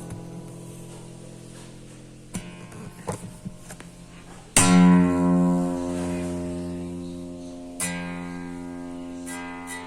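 Acoustic guitar played slowly: a chord left ringing and fading, a few single plucked notes, then a loud strummed chord about halfway through that rings out, and a lighter strum near the end.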